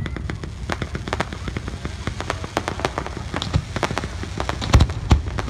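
Aerial fireworks display: a dense, fast run of crackling pops, with two heavier booms near the end.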